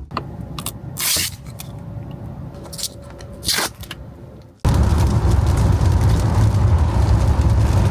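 A quieter stretch with a few clicks and two brief swishing rustles, then a sudden cut to the steady low rumble of a car in motion.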